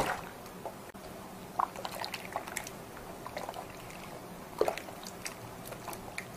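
Raw pork rib pieces sliding into a stainless steel bowl of soy-sauce marinade, then wet squelching and sloshing as gloved hands work the ribs through the liquid.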